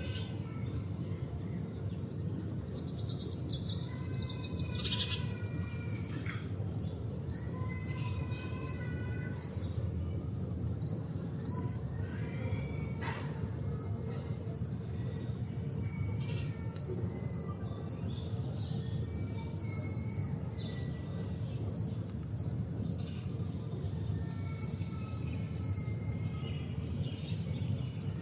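Male house sparrow chirping over and over in a steady series of short, high chirps, about two a second, starting a few seconds in. Fainter, lower bird calls come in now and then, over a steady low background rumble.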